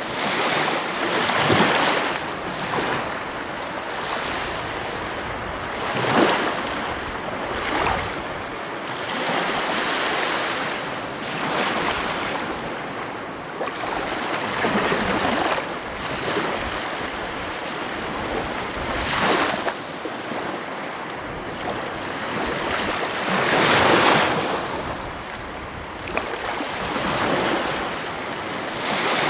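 Heavy ocean waves breaking on the shore, the surf swelling into a loud rush every few seconds between steadier washing, the biggest surges about six seconds in and near the end.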